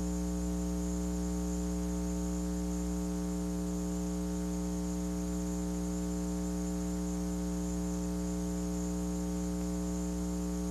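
Steady electrical mains hum, a low buzz that does not change, with a faint high whine above it.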